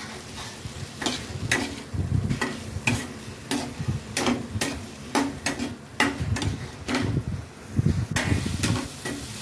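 Perforated metal spoon scraping and tapping against a kadhai while stirring fried taro root (arbi) pieces through thick masala, about two strokes a second, over a light sizzle. The arbi is being lightly fried in the cooked masala before water is added.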